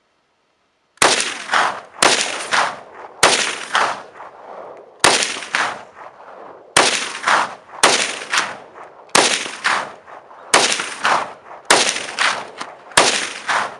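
Norinco SKS semi-automatic rifle firing ten 7.62×39 mm rounds at an uneven pace of about one shot every one to two seconds, each crack followed by a short echo.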